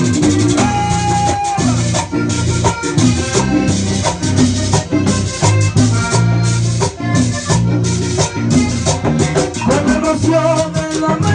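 Live vallenato band playing: accordion melody over congas, timbales, electric bass and a fast, steady shaken-rattle rhythm. A boy's voice comes in singing near the end.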